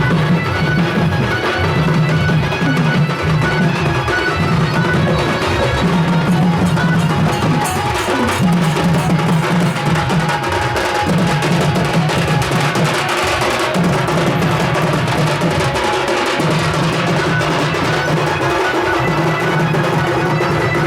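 Loud music driven by drum percussion with a steady beat.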